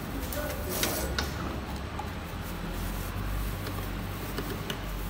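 PET bottle blow moulding machine running, with a steady low hum and light clicking from the preform conveyor and holders. There is a short hiss about a second in.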